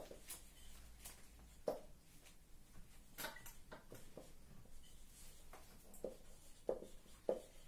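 Marker pen writing on a whiteboard: scattered short taps and scratchy strokes, about eight of them, as words are written out.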